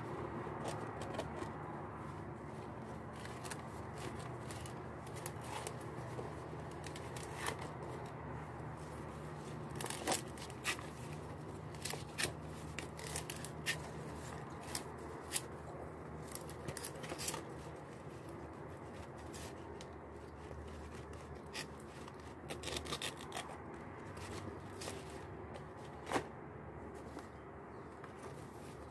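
A small knife cutting along the midribs and stems of ti leaves: irregular crisp snaps and tearing clicks of the leaf fibres splitting, busiest through the middle.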